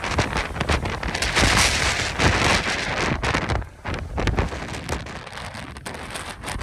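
Strong Santa Ana wind gusting, with a low rumble of wind on the microphone under a rushing hiss. The gust eases about halfway through, leaving a weaker, still-buffeting wind.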